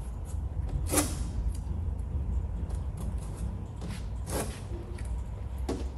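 Masking tape being pulled and torn by hand in three short rips, over a steady low hum.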